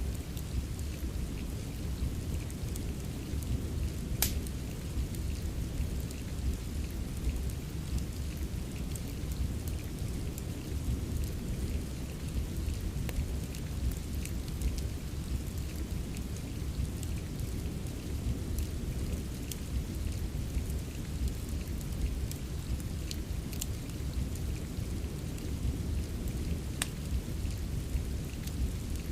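Steady rain with a deep, even low rumble, and a wood fire crackling in scattered sharp pops, the loudest about four seconds in.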